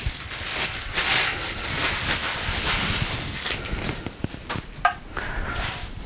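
Packaging rustling and crinkling as a statue base is pulled out of its box, with a few light knocks and a brief squeak about five seconds in.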